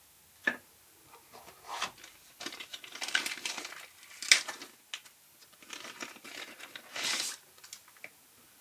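Packaging rustling and crinkling as it is handled, in irregular bursts, with a sharp click about half a second in and a louder one about four seconds in.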